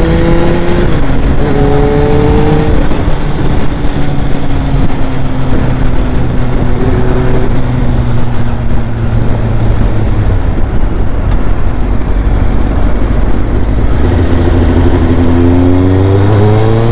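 Kawasaki ZX-9R's inline-four engine on the move: it pulls up through the revs, changes gear about a second in and pulls again, then holds a steadier, slowly falling pitch before climbing once more near the end. Heavy wind rush on the microphone runs underneath.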